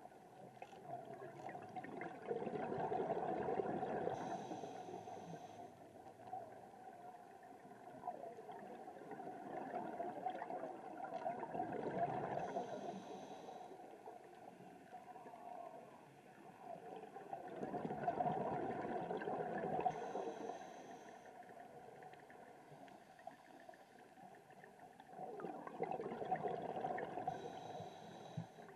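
A scuba diver breathing through a regulator underwater: four slow cycles, about eight seconds apart, each a long gurgle of exhaled bubbles followed by a short higher hiss.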